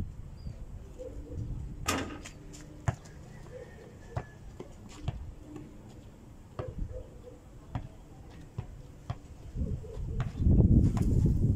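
A basketball on an outdoor hoop and a hard dirt court. There is a sharp clang about two seconds in as a shot strikes the hoop, then scattered single bounces and knocks. Near the end comes a louder run of low thuds as the ball is dribbled.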